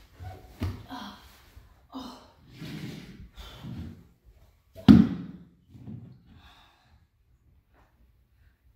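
A woman's heavy breathing, sighs and gasps in short bursts, then one sudden loud thump about five seconds in, followed by a few fainter breaths.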